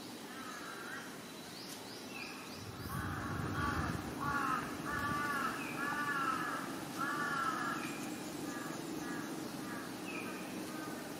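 A bird calling a long series of repeated notes, about two a second, each rising and falling in pitch, loudest in the middle of the run and fading towards the end. A shorter, higher note from another bird sounds every second or two.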